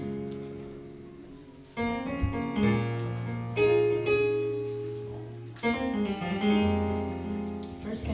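A Yamaha MO6 synthesizer keyboard plays slow piano chords. Each chord is held and fades away before the next one is struck, every second or two.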